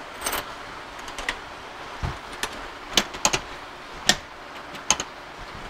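Alloy motorcycle top box being handled and locked: a string of sharp clicks from its latch and lock, with a duller knock about two seconds in.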